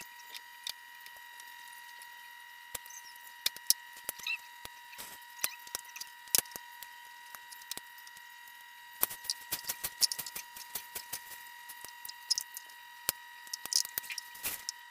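Scattered clicks and light knocks of a baby high chair's plastic and metal parts being handled and fitted together, coming thickest about nine seconds in and again near the end. A steady faint high tone runs underneath.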